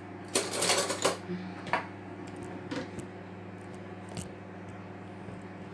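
Dishes and cutlery being handled: a burst of clattering in the first second, then a few scattered clinks, over a steady low hum.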